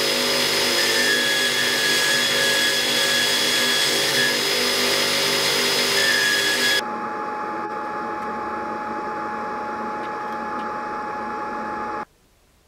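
HBM belt grinder running with a metal knife guard held against the sanding belt at its contact wheel, a steady loud grinding noise with several whining tones. About two-thirds of the way in it drops to a quieter steady running with a single tone, then cuts off abruptly near the end.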